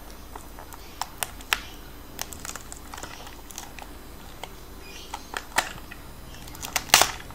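A hobby knife blade and fingernails picking and scraping at the sealed flap of a small cardboard toy-car box: scattered light clicks and scratches, the loudest couple near the end.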